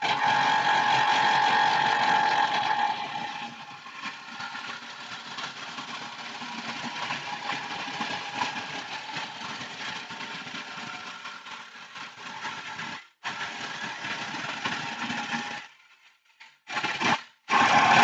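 Electric woodworking power tool with a dust extractor attached, running and machining a wooden workpiece. It gives a steady high whine that is loudest for the first three seconds, then runs on more quietly. It stops about two seconds before the end, and two short bursts follow.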